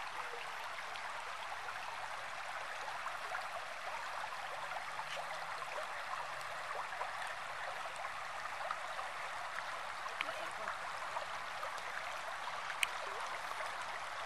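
River water rushing steadily over shallows, an even hiss with a few faint ticks.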